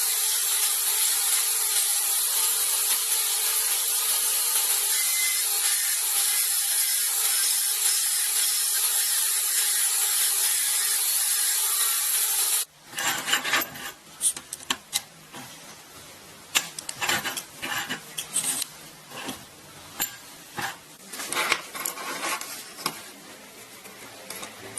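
Steady rubbing or sawing noise from a tool working material, which stops abruptly about halfway through and gives way to quieter, irregular knocks and scrapes.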